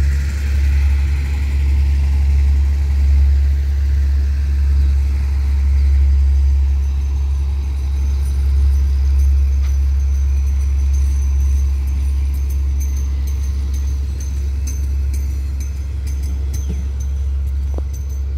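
Passenger coaches of a diesel-hauled train rolling past on the rails with a steady low rumble, joined by light clicks and a faint high whine in the second half as the last coaches go by.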